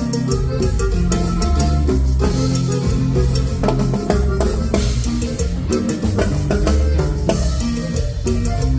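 Live band playing, with the drum kit and bass guitar prominent over other instruments in a steady rhythm.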